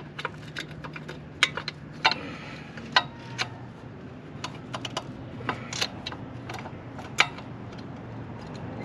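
Irregular light metallic clicks and taps of brake pads and their spring retaining clip being worked into a Suzuki GSX-R1000's rear brake caliper by hand, with a few sharper clicks as the parts shift and seat.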